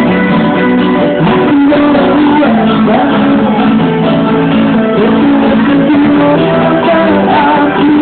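A live acoustic band playing a pop song: strummed acoustic guitars, with a voice singing at times.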